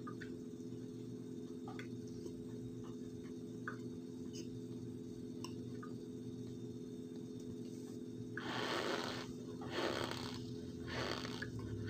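A mouthful of cornstarch being chewed, with faint small crunches. About eight seconds in come a few loud breaths through the nose, one long and then two shorter. A steady low hum runs underneath.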